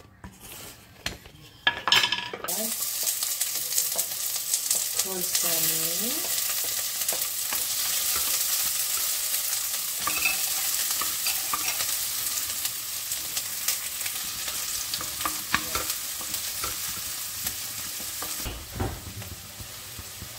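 Food goes into hot cooking oil in a karahi about two seconds in and starts a loud, steady sizzle. A spatula stirs and scrapes through it with scattered clicks against the pan. The sizzle drops off near the end.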